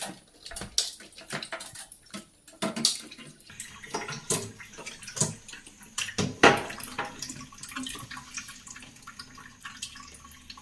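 Irregular clicks, taps and knocks of hands and a screwdriver working on a refrigerator's plastic freezer frame and thermostat housing, with one sharper knock about six and a half seconds in.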